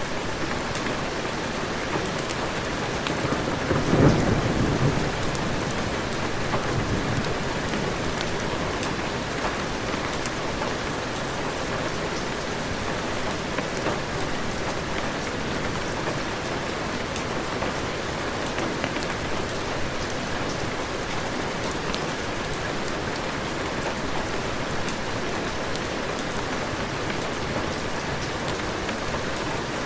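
Heavy rain falling steadily, with one peal of thunder about four seconds in that rumbles away over the next couple of seconds.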